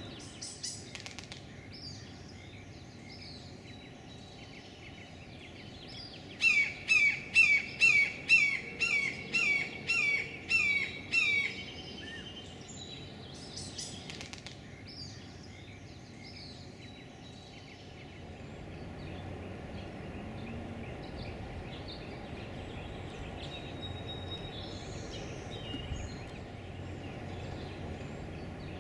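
Red-shouldered hawk calling a loud series of about eleven down-slurred screams, roughly two a second, lasting about five seconds, with a few faint chirps of small birds before and after.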